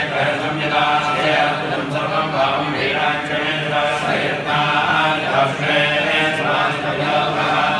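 A group of men chanting Sanskrit mantras together in one continuous stream of phrases.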